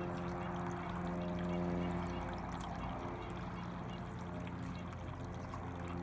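Small electric tabletop fountain, water trickling and splashing steadily from its spout into the basins, over a steady low hum.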